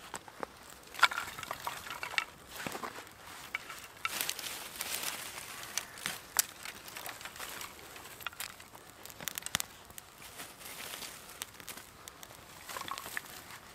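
Dry twigs being handled and laid over a small burning wood wool fire lighter on split wood, with rustling and crackling, and sharp knocks as sticks land on the wood.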